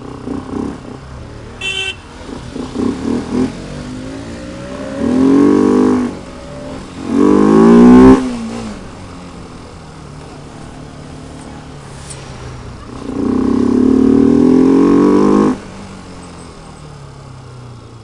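Bajaj Pulsar RS200 single-cylinder engine, fitted with a K&N conical air filter, running under way and pulling hard in three rising bursts of revs about five, seven and thirteen seconds in. The last pull is held for about two seconds, with lighter running between the pulls.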